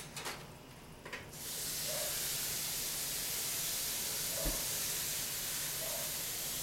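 A few light knocks, then a kitchen faucet running in a steady hiss, turned on about a second and a half in and shut off near the end, as water is drawn to thin the browning roux.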